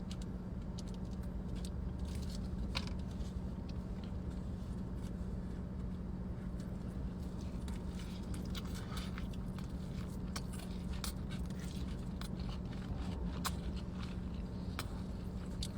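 Close-miked chewing of burger and fries: scattered soft mouth clicks and smacks over a steady low hum.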